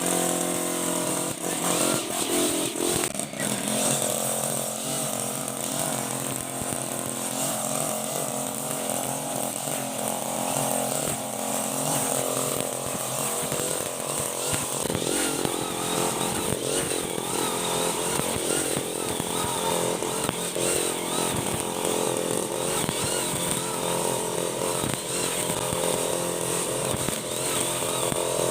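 Brush cutter with a Honda GX35 four-stroke single-cylinder engine running steadily, its pitch wavering slightly up and down.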